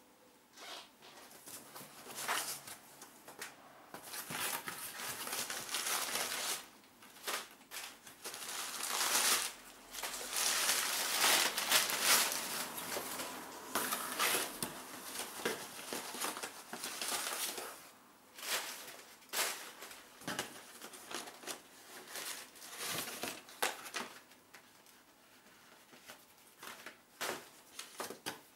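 Cardboard box and its packing being handled and unpacked by hand: rustling and crumpling in irregular bursts, loudest about halfway through, then lighter taps and rustles.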